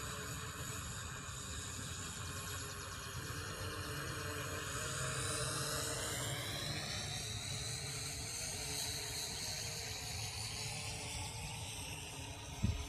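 Syma X8C quadcopter's four brushed motors whining in flight, heard from a distance, a steady multi-toned whine whose pitch rises around the middle as the throttle goes up, over a low steady rumble.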